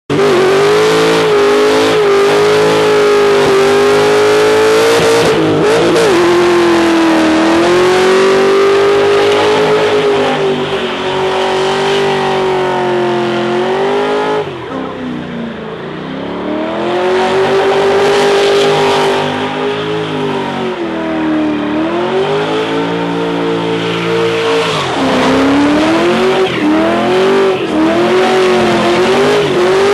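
HSV Clubsport V8 held at high revs during a burnout, its rear tyres spinning and squealing. The revs dip and climb again several times, most deeply about halfway through.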